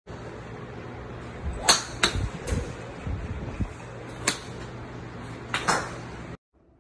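Golf balls being struck at a driving range: several sharp cracks over a steady background hum, the loudest about a second and a half in, and one a little after four seconds in as the iron meets the ball at the end of the downswing. The sound cuts off suddenly near the end.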